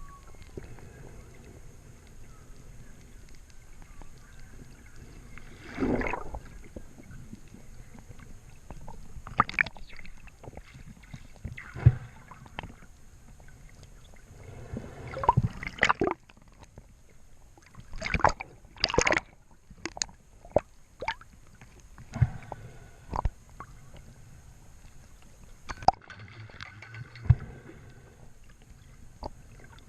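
Water sloshing and gurgling, with scattered sharp clicks and knocks coming at irregular moments and a few short louder splashy bursts.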